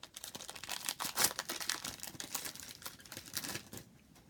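Trading card pack wrapper crinkling and tearing as it is pulled open by hand, with a run of irregular crackles.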